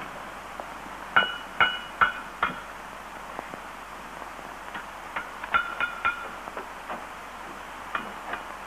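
Blacksmith's hammer striking an anvil, each blow ringing briefly: a run of four evenly spaced strikes about a second in, another run of about four around five seconds in, and two more near the end.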